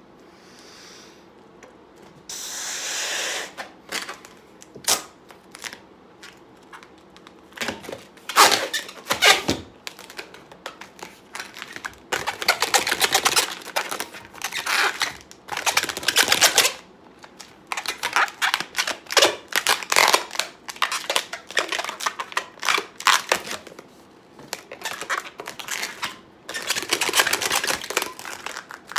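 A long latex twisting balloon being inflated and worked by hand: a brief rush of air about two seconds in, then runs of rapid rubbery squeaks and rubbing as the balloon is handled and twisted.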